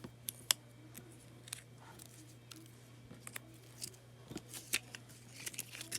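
Faint, scattered clicks and light rustles of small paper and foam craft pieces being handled, over a steady low hum.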